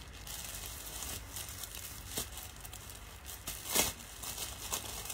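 Faint rustling and handling noises with a few light clicks, and one louder short rustle about four seconds in.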